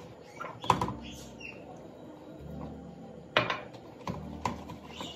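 Wire whisk stirring in a plastic mixing bowl, with a few sharp clicks and taps as it strikes the bowl, once about a second in and several more past the middle.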